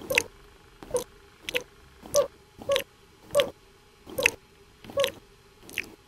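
Short cartoon slurping, licking sounds repeated about nine times, roughly one every 0.7 seconds, as a creature licks a phone screen clean.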